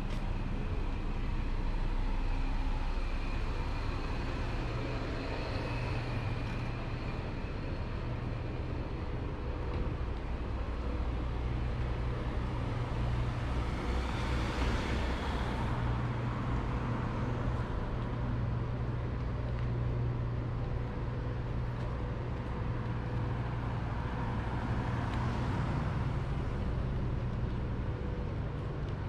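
Street traffic: a steady low rumble of vehicles, with two louder passes, one about halfway through and one near the end.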